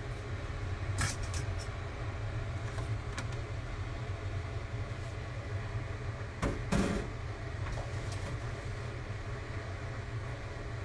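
Kitchen handling noises over a steady low hum: a few light clicks, then a louder clunk of a pot about seven seconds in, as a pot of blanched greens is taken from the stove to the sink to be drained.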